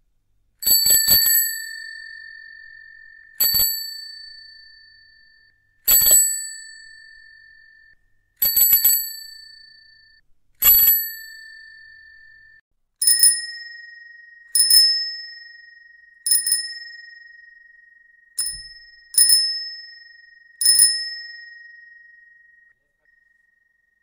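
Bicycle bell rung again and again, about eleven times. Each ring is a quick cluster of strikes followed by a clear ringing tone that fades over a second or two. About halfway through, a second bell with a different tone takes over, rung at a slightly faster pace.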